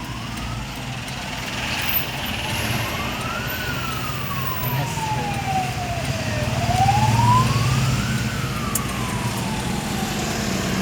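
A siren wailing slowly, its pitch rising and falling twice, over the steady low drone of a heavy vehicle engine.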